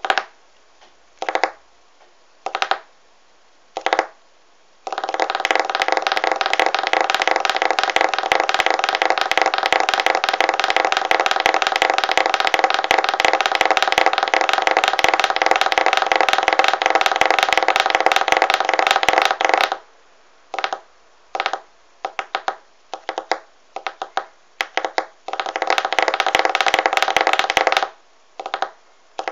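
Fingertips drumming on a wooden surface as finger percussion: a few single taps, then a fast continuous finger roll lasting about fifteen seconds, then scattered taps and a shorter roll near the end.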